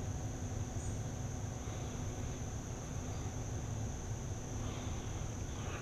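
Steady, high-pitched chirring of an insect chorus in the grass, over a low rumble.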